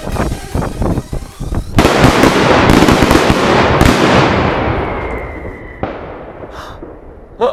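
Cobra Trate flash banger exploding with one very loud bang about two seconds in, followed by a long echoing rumble that slowly dies away over several seconds.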